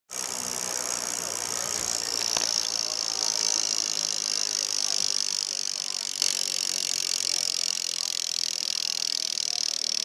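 Steady noisy outdoor background with indistinct voices, and sharp clicks about two and a half and six seconds in.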